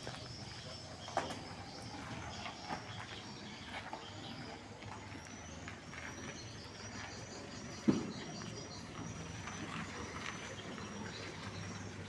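Mitsubishi Colt L300 van engine idling as a low steady hum, with birds chirping over it. A single sharp knock comes about eight seconds in, with a few lighter clicks before it.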